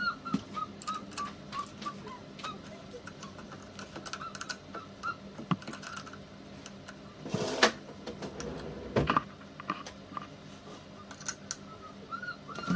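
Small metal clicks and taps of a hex key unscrewing a bolt on the rear fork bracket of a Xiaomi M365 electric scooter being taken apart, with two louder handling knocks a little past the middle. Faint, short repeated chirps can be heard near the start and near the end.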